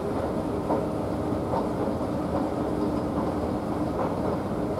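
Escalator running, with a steady machine hum and a faint regular click about every 0.8 seconds as the steps pass.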